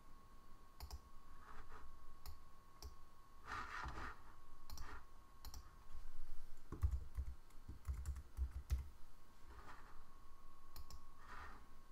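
Scattered clicks of a computer keyboard and mouse as a short word is typed, with a few soft low thumps about two-thirds of the way through.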